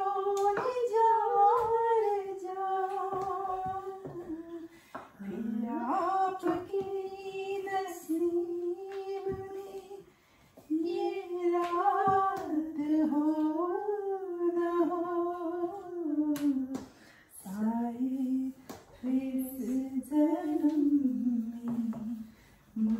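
A woman singing a slow, unaccompanied melody in phrases of long held notes, with short breaks between phrases. Faint clicks and taps sound under the singing.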